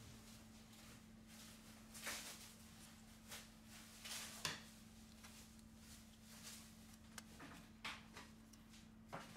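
Faint, brief scrapes and clicks of plastic opening picks being worked against a phone's frame and adhesive, several times, over a low steady hum.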